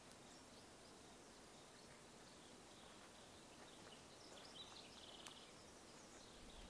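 Near silence: quiet woodland ambience with scattered faint high chirps, a short trill about four and a half seconds in, and a single faint click just after five seconds.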